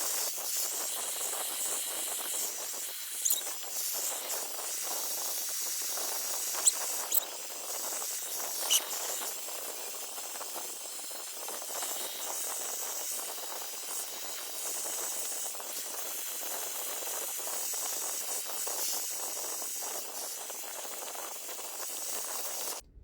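High-speed hair dryer blowing steadily, a rush of air with a thin high whine, heard in sped-up playback. A few brief sharp squeaks come in the first half, and the dryer noise cuts off abruptly near the end.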